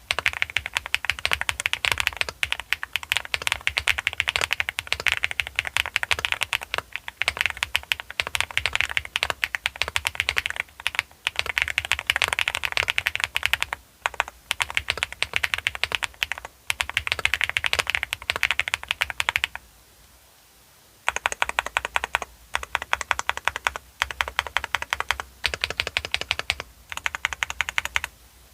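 Fast, continuous typing on a Galaxy 80 mechanical keyboard with Akko Cream Blue V3 tactile switches: a dense patter of keystrokes with a marbly sound, broken by brief gaps and one pause of about a second and a half about two-thirds of the way through.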